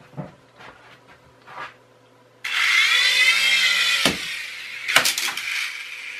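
UDI U809 micro coaxial RC helicopter's small electric motors and rotors starting up suddenly about two and a half seconds in. It gives a loud, high whine with a wavering pitch, its pinion gears now super-glued onto the motor shafts so they no longer slip. Two sharp knocks about a second apart come as it climbs, and then the whine eases off.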